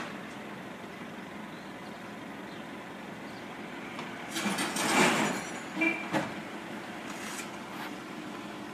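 Steady road and engine noise of a moving vehicle. About four seconds in it swells into a louder rushing noise for about a second, then two short sharp sounds follow.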